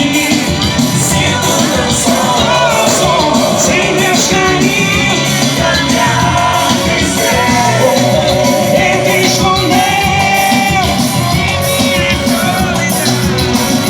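Loud live band music, steady throughout, with a wavering melody line over it.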